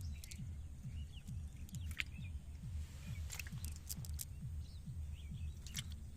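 Birds chirping in short, scattered calls over a low, steady pulsing that repeats about three times a second.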